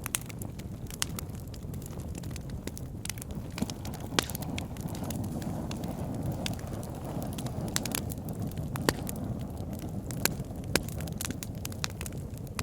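Wood fire burning in a fireplace: a steady low rush of flames with frequent sharp crackles and pops from the burning wood.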